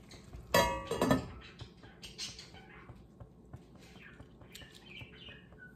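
Two ringing metal clanks about half a second apart as a stainless-steel lid is set onto a stainless-steel frying pan, followed by faint crackling of beef frying under the lid.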